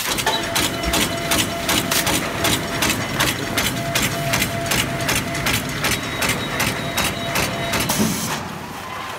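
Disposable polyethylene glove making machine running: a fast, even clicking of its cutting and sealing cycle, several strokes a second, over a faint steady whine. The clicking stops about a second before the end.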